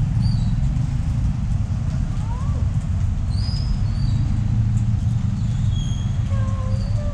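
Street ambience: a steady low rumble of passing traffic, with short high bird chirps scattered through it.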